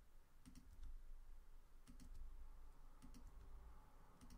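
Faint clicking at a computer, about five times, most of them quick double clicks, over a quiet room.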